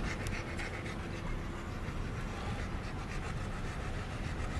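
A dog panting inside a moving car, over the steady low rumble of the car driving.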